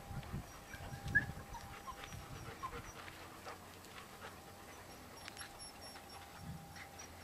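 Golden retriever puppies giving a few faint, short squeaks, the loudest about a second in, over a high, rapid chirping in the background.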